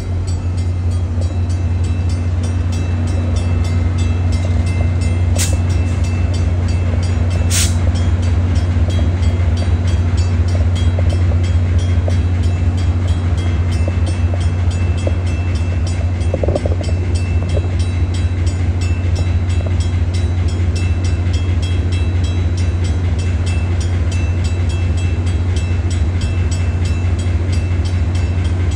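Diesel engine of a Metra MP36PH-3S passenger locomotive running steadily close by, a deep even rumble with no change in pitch.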